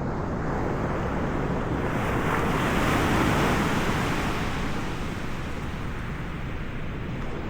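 Ocean surf: a wave swells and breaks with a rushing wash about two to four seconds in, then eases off, over a steady low rumble of wind on the microphone.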